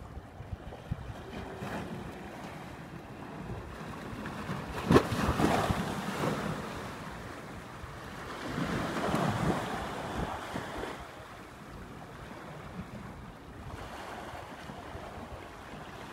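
Small waves washing onto a sandy shore, with wind buffeting the microphone; the sound swells twice, around five and nine seconds in.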